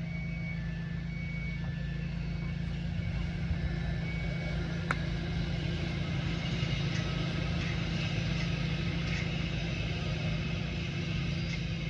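A single sharp click about five seconds in: a 58° wedge striking the golf ball on a chip shot. Behind it runs a steady low rumble, like distant traffic.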